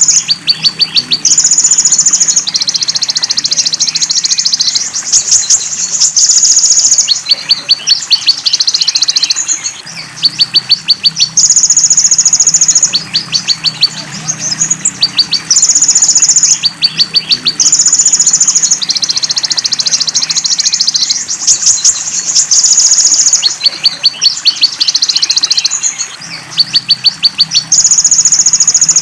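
Recorded konin (sunbird) song-training track with belalang emas and cililin filler phrases: high buzzy trills alternate with rapid runs of sharp ticks, repeating every few seconds, over a faint steady low background.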